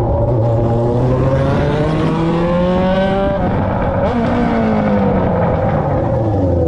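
Yamaha XJ6's 600 cc inline-four running on a straight pipe with no muffler. It revs up for about three seconds, drops sharply as the throttle closes, then winds down more slowly.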